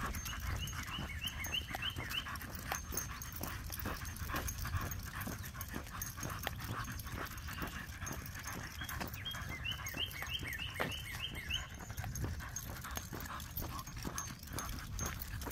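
Short-nosed dogs, a French bulldog and a white bulldog-type dog, panting as they walk, over a steady run of footsteps and small clicks on a paved path. Twice, near the start and about nine seconds in, a bird sings a quick series of short rising notes.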